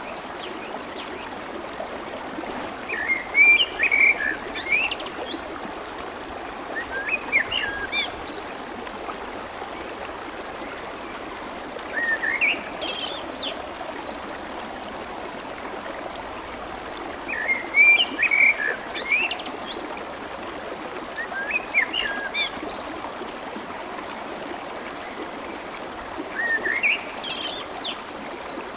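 Clear stream water babbling and flowing steadily, with a songbird singing short, quick chirping phrases about six times, a few seconds apart.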